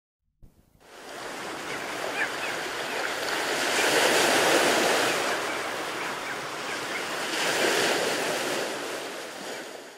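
Rushing wash of surf that fades in about a second in, swells twice and fades out near the end, with a few faint short high chirps over it.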